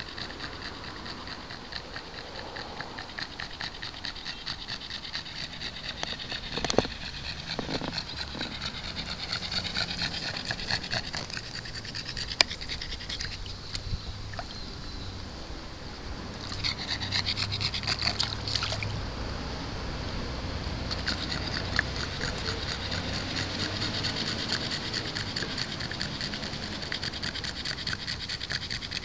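A pug panting rapidly while it stands and lies in shallow trickling water, with the water running around it. Two short sharp clicks stand out, about seven and twelve seconds in.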